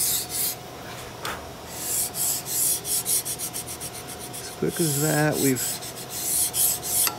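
Rubbing and rasping on a steel flintlock longrifle barrel clamped in a vise, in two spells about two and five seconds in, as the draw filing is finished.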